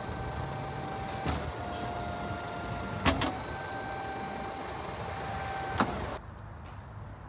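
Electro-hydraulic pump of a truck's tail lift running with a steady whine as the platform folds up. A sharp clunk about three seconds in breaks off the whine, which then resumes and ends with another clunk near the end.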